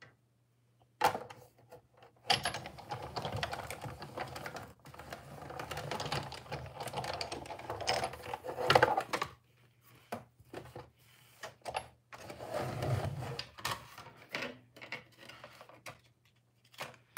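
Pattern paper and cardstock being handled on a cutting mat: irregular rustling and shuffling with small taps and clicks. It starts about a second in.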